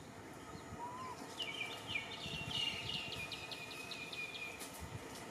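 A bird singing a quick run of high notes for about three seconds, starting about a second and a half in, over a faint steady outdoor hiss.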